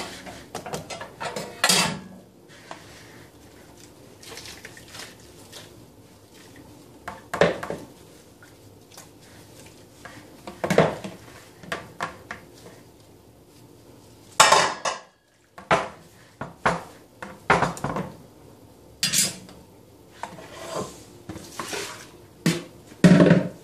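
Metal gas-hob grates clattering and clanking against the stovetop and a plastic bowl as they are washed by hand and set back in place: about a dozen separate knocks, the loudest about halfway through and just before the end.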